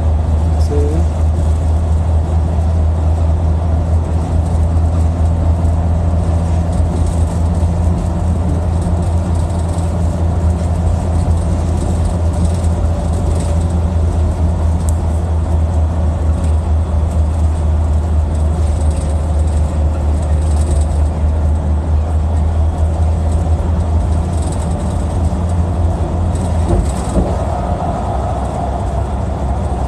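Steady low rumble of a moving vehicle heard from inside the cabin.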